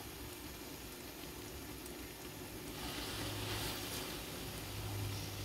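Curry sauce sizzling in a large aluminium pot as whole hassa (armored catfish) are laid and pressed into it; the sizzle swells about three seconds in. A low steady hum comes in at the same time.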